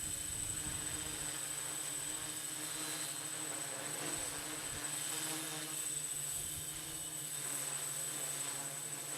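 Multirotor hexcopter with six electric motors on 14-inch props, buzzing steadily as it hovers. Wind gusts rumble on the microphone, at the start and again about halfway through.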